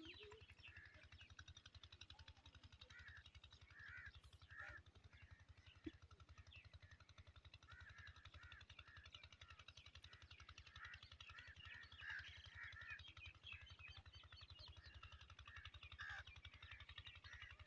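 Faint chorus of many birds chirping and calling, busier in the second half, over a low steady hum.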